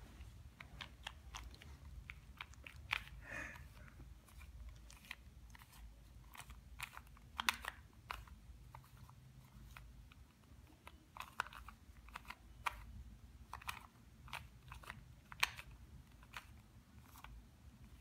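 Plastic Rubik's cube being twisted by hand: quick, irregular clicks and crunchy rattles as its layers turn.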